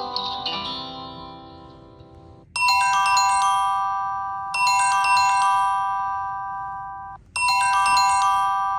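Samsung Galaxy J3 (2017) ringtones playing. A plucked-guitar-like ringtone fades out over the first two and a half seconds, then a bright mallet-chime ringtone starts. Its short phrase repeats about every two seconds, breaks off briefly about three quarters of the way through, and starts over.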